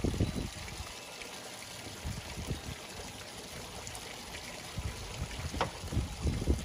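Garden pond fountains trickling and splashing steadily. Low, uneven rumbles come at the start and again in the last second and a half.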